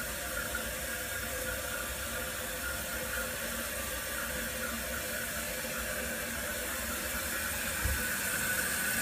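Toilet tank refilling through a newly installed fill valve: a steady hiss and rush of water, growing slightly louder toward the end, with one light low thump about eight seconds in.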